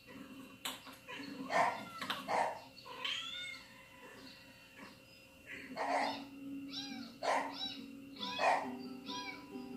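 Cats meowing over and over, about six separate meows, played through a television's speakers.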